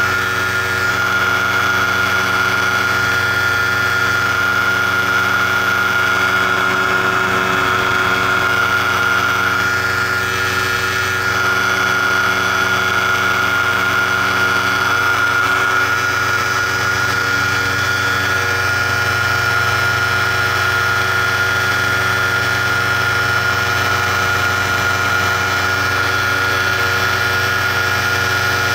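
Paramotor engine and propeller running steadily in flight, holding a constant speed with no change in pitch.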